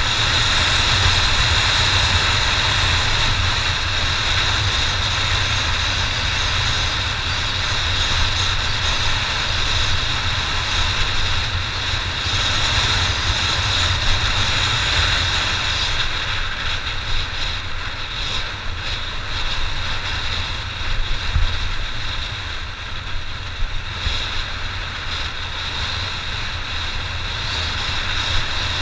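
Honda XR600 enduro motorcycle's single-cylinder four-stroke engine running steadily on the move, a continuous low rumble.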